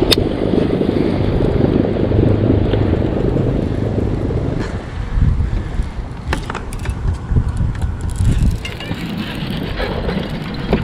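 Wind buffeting the microphone, heaviest for the first four or five seconds and then easing. A sharp click comes right at the start, with a few fainter clicks later, as a baitcasting reel is cast and worked.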